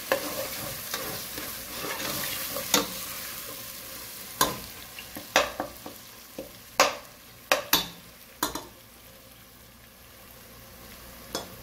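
Metal spoon stirring and scraping a spiced masala frying in oil in a stainless steel pot, with a sizzle that slowly fades. Sharp clinks of the spoon against the pot, most of them between about four and nine seconds in.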